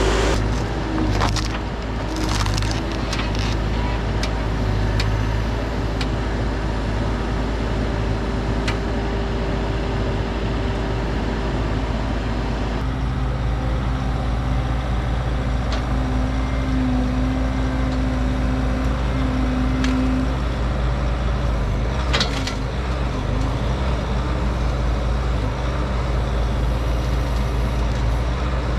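A heavy machine's diesel engine running steadily while wood cracks and splinters, with sharp snaps in the first few seconds and again in the last third. The engine's note changes to a different steady pitch about halfway through.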